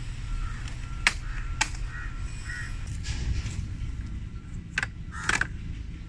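Sharp plastic clicks and snaps from a Worx Pegasus folding work table being handled, its parts and clamp being set in place: two about a second in and two more near the end, over a steady low outdoor rumble.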